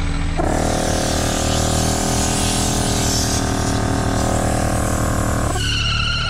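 Portable tyre inflator's compressor running with a steady buzz and hissing air for about five seconds, then cutting off, over engines idling underneath. Distorted guitar music comes in near the end.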